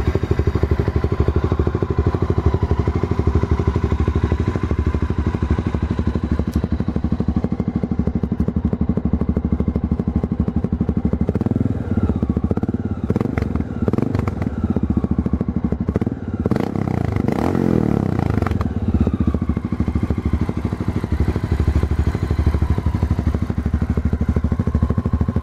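Honda FMX 650's single-cylinder engine idling through a LeoVince X3 aftermarket silencer with a steady, even pulse. It is revved up and let fall back a few times about halfway through, then settles back to idle.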